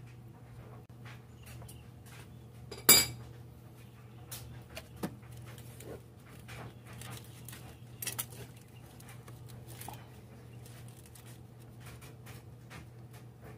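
Metal parts and tools clinking and rattling in a car's engine bay as hoses and fittings are handled by hand, with one sharp, loud metallic clink about three seconds in, over a steady low hum.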